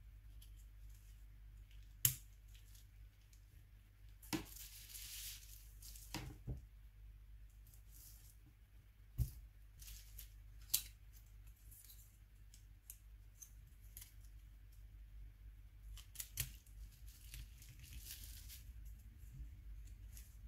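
Faint handling sounds of a Nokia N93 phone being reassembled: scattered sharp clicks and snaps of its small plastic and metal parts, with two stretches of crinkly rustling, all over a low steady hum.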